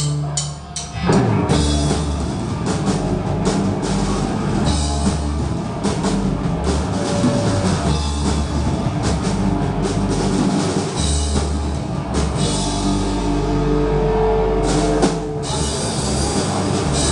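Live rock band playing at full volume: drum kit, electric guitar and bass. The song starts about a second in after a few sharp drum hits.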